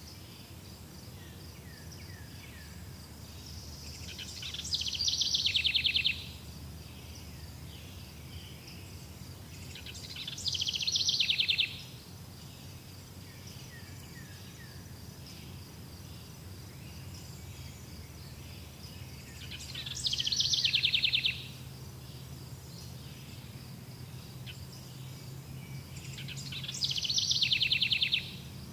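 Insects calling: a steady high cricket-like trill runs throughout, and a louder, rapidly pulsing insect call comes four times, each lasting about two seconds, swelling and then stopping abruptly. A faint low hum sits underneath.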